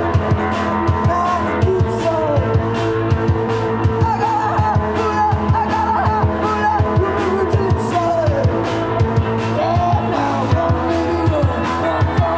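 Live rock band playing, with electric bass and a steady beat under a woman singing.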